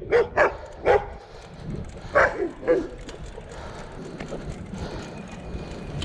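Dogs barking in short bursts: three quick barks in the first second and two more a little after two seconds in, then only a steady low rush.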